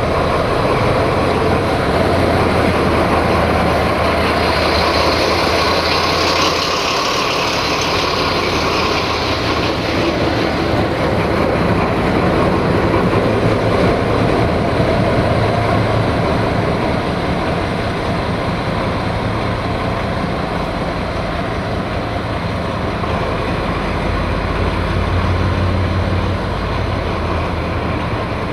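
Diesel engine of an M41 class diesel-hydraulic locomotive running close by, a steady low throb. A long hiss rises over it about five seconds in, and the engine sound carries on as the locomotive moves off on a shunting move, a little quieter in the second half.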